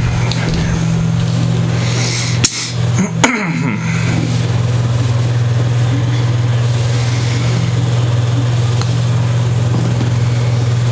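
Steady low hum with two sharp clicks, one about two and a half seconds in and another under a second later.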